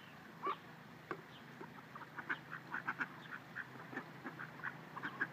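A flock of ducks quacking in short calls: one louder call about half a second in, then a quick run of short calls several a second.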